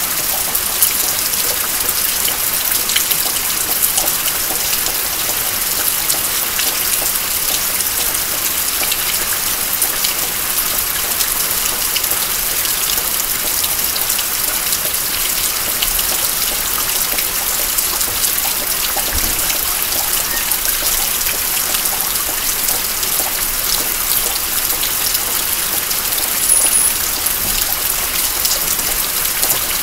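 Steady rain falling, a hiss dotted with many small drop ticks, with water dripping off the edge of the house roof.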